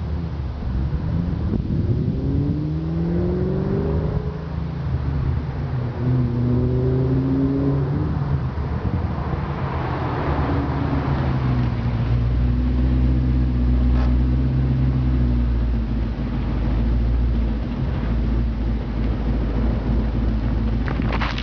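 1999 Ford Mustang SVT Cobra's 4.6-litre quad-cam V8, breathing through long-tube headers and an SLP Loudmouth II exhaust, revving up under hard acceleration. The pitch rises, drops sharply at a gear shift about four seconds in, climbs again, then holds steady for several seconds before falling away.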